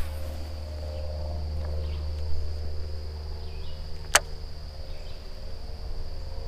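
Insects droning steadily on one high note over a low steady rumble, with a single sharp click about four seconds in.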